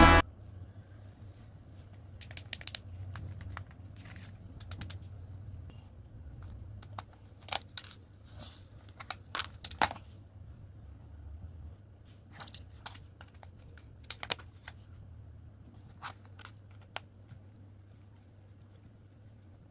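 Scattered light clicks and rustles of small objects being handled, over a steady low hum.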